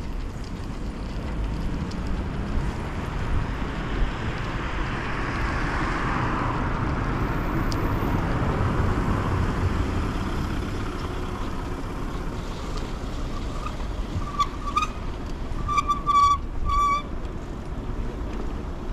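Street traffic heard from a moving bicycle, with a vehicle passing by that swells and fades around the middle. Near the end come four or five short, shrill tones in quick succession.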